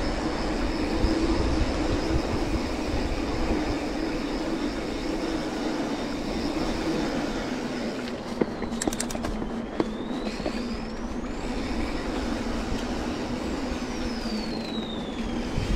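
Mountain bike riding downhill at speed: a steady hum of the tyres rolling, with wind buffeting the microphone and a few short clicks in the middle.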